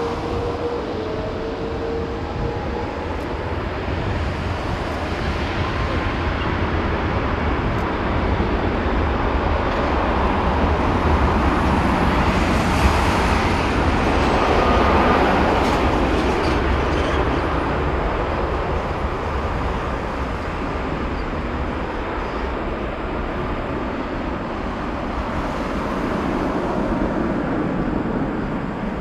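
The Airbus A330-243's Rolls-Royce Trent 772B turbofans running at low power as the airliner taxis past: a steady jet rumble that swells about halfway through, with a faint falling whine, then eases slightly.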